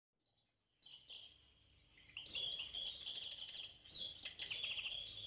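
Small birds chirping and singing, faint at first and then a dense run of quick chirps from about two seconds in.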